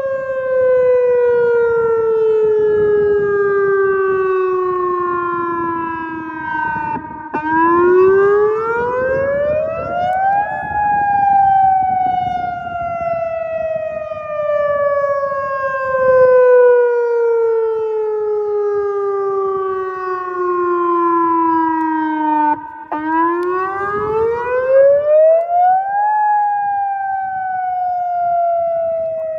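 Outdoor tornado warning siren sounding a wail during a test. Its tone rises over about three seconds and then slowly falls for about twelve, twice.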